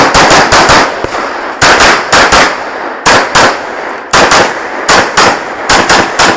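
Rapid pistol fire in a USPSA stage: shots come in quick pairs and strings of three or four, with short pauses of about half a second to a second between groups as the shooter moves from target to target.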